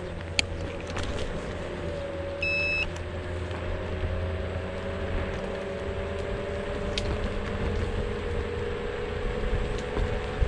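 Xiaomi M365 electric scooter riding on 8.5-inch tires, its hub motor giving a faint whine over wind rumble and tyre noise; the whine dips and then climbs slowly as the scooter picks up speed again. A short electronic beep sounds about two and a half seconds in, with a few sharp clicks.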